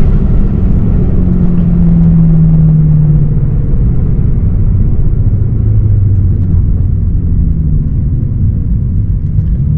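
BMW E92 M3's V8 with an Akrapovič exhaust running under way, heard from inside the cabin over steady road rumble. Its note drops in pitch in the first few seconds and again around the middle as the revs fall.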